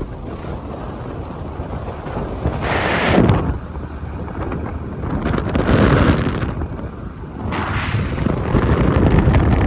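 Wind buffeting the microphone and road noise from a car driving along with the window open. The rush swells and eases several times.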